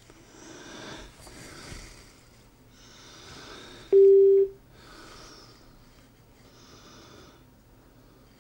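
Gravastar Bluetooth speaker giving one steady mid-pitched beep, about half a second long, some four seconds in: its repeating prompt while it waits in Bluetooth pairing mode. Soft breathing noises come and go around it.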